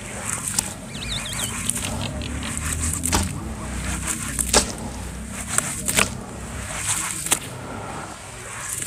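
Wet sand chunks squeezed and crumbled by hand in water: squelching and sloshing, with scattered sharp little pops and crackles.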